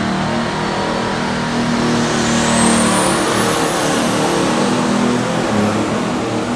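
Allis-Chalmers D21 pulling tractor making its run, its engine running hard under load with a high whistle that rises about two seconds in and then holds.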